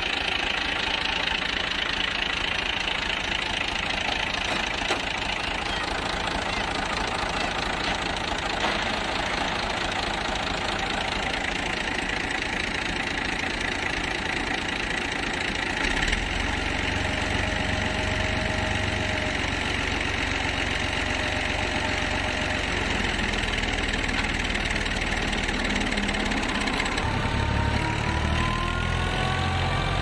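Fiat 480 tractor's three-cylinder diesel engine running steadily, with a wheat thresher coupled to it; its pitch rises slightly near the end.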